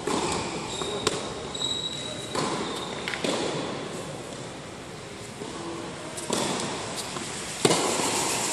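Tennis rally: a ball struck by rackets and bouncing on the hard court, a few sharp pops that echo in a large indoor hall.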